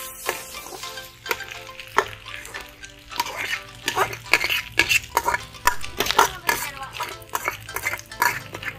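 A metal spoon scraping and knocking against a metal rice-cooker pot as cooked rice is scooped out into a hot wok, giving irregular clinks and scrapes over a light sizzle of frying.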